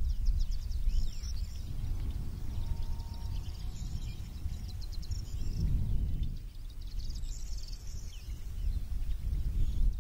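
Wind buffeting the microphone with an uneven low rumble. Over it, birds sing high chirps and fast trills.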